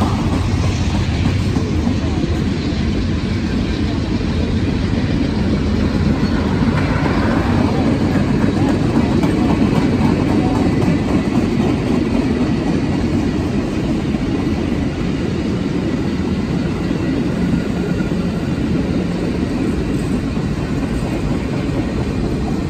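Passenger train's heritage coaches rolling past close by, a steady rumble of steel wheels on the rails. A road car passes close by at the start.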